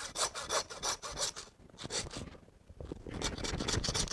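Hand bone saw cutting through a beef chuck bone in back-and-forth rasping strokes, about three a second, with a short pause midway before the sawing resumes more densely.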